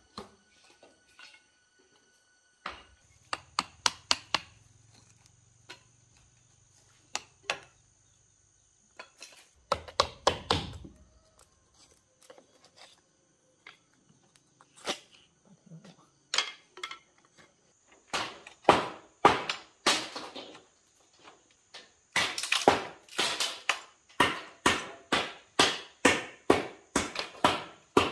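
Repeated sharp knocks of a hand tool striking, in scattered groups at first and then a steady run of about two blows a second near the end.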